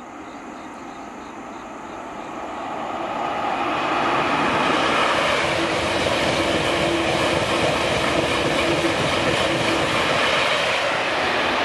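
KTX high-speed electric train passing at speed: a rushing rail and air noise that swells over the first few seconds as it approaches, then holds steady and loud as the cars stream by.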